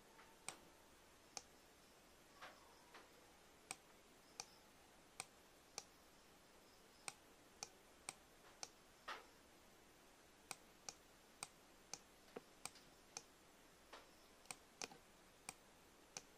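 Irregular single clicks of a computer mouse and keyboard, one or two a second, over faint hiss.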